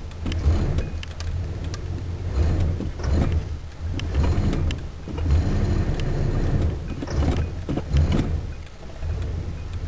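The 305 small-block V8 of a 1985 Chevrolet Caprice running while parked, heard from inside the cabin. Its low hum swells and eases several times, with a few sharp clicks over it. The owner believes the timing chain has skipped a notch and that the valves are knocking.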